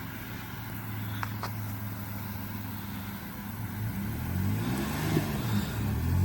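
Off-road vehicle's engine idling steadily, then revving up and down repeatedly from about four seconds in.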